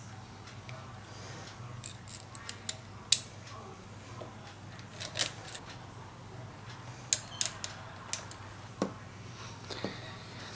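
Scattered small metallic clicks and taps of a bolt, spacer collar and bracket being handled and fitted while mounting a heated-grip controller on a motorcycle handlebar. The sharpest click comes about three seconds in.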